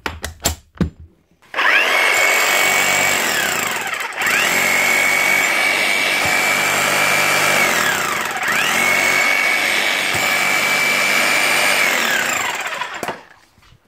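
Milwaukee K500 ST demolition hammer run three times with its chisel bit down on rubble. Its motor whines up to speed, holds steady for a few seconds and winds down each time. It is hitting only weakly: it has lost compression through a worn piston O-ring.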